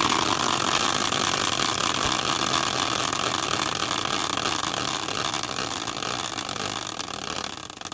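Caster wheel used as a team-logo prize wheel, spun hard by hand and whirring on its axle with a steady hiss that slowly fades as it loses speed. Near the end, as it slows to a stop, the hiss breaks into a few ticks.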